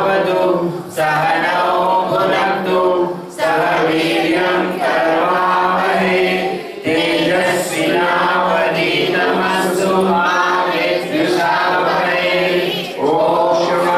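Hindu devotional hymn sung by a group of voices without instruments, led by men on microphones. It goes in sung phrases of a few seconds with short breaks for breath between them.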